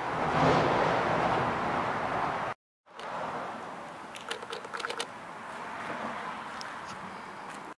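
Road traffic passing, a rush of noise that swells and fades and then cuts off suddenly about a third of the way in. Quieter traffic ambience follows, with a quick run of light clicks around the middle.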